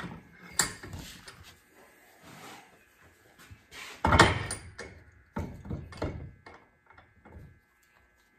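Heavy steel hydraulic cylinder handled and set into a bench vise: one loud metallic clunk about four seconds in, then a quick run of lighter knocks and clatters as it is clamped, with a few smaller knocks before and after.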